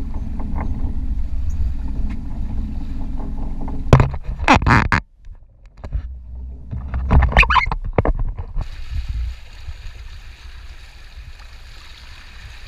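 Steady low rumble of a boat idling at sea with water noise, broken by two loud short bursts about four and seven seconds in, then a fainter hiss from about nine seconds.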